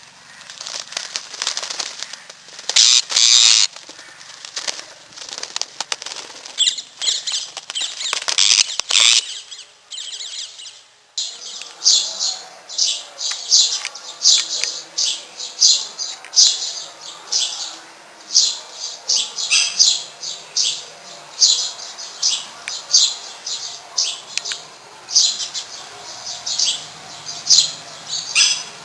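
Birds flapping their wings in a dense, fluttering flurry for about the first ten seconds; after an abrupt break, a bird chirps over and over in short high calls, about two a second.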